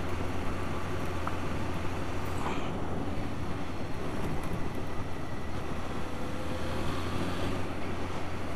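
Motorcycle engine running steadily at a cruise, with a constant low hum under the rush of wind on the bike-mounted camera's microphone.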